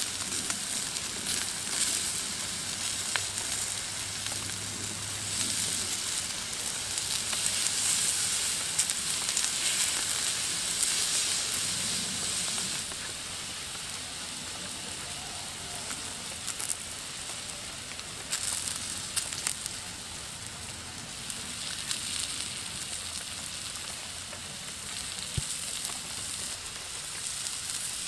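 Fish roe sizzling on a hot flat stone over a wood-ember fire, a steady frying hiss with scattered small pops and crackles. The sizzle is louder for the first half and settles softer after that.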